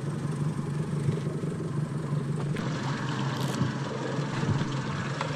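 Twin 150 hp outboard motors idling with a steady low hum, under an even hiss of wind and water.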